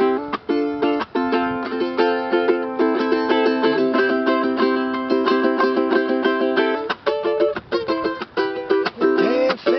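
Acoustic ukulele strummed in chords, with a few brief muted stops in the strumming.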